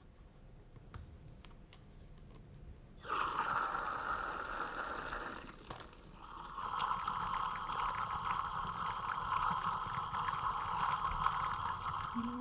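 Cider running from a wooden barrel's tap and pouring into glass: a steady splashing pour that starts about three seconds in, breaks off briefly, then runs on.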